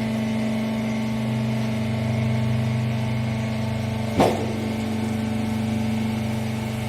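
Hydraulic rag baler's electric motor and pump running with a steady hum, with one sharp metallic clank about four seconds in.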